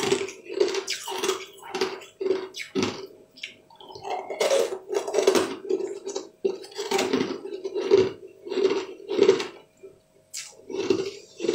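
Close-up chewing of crunchy, crystal-coated blue candy balls: wet crunching bites in an even rhythm of about two a second.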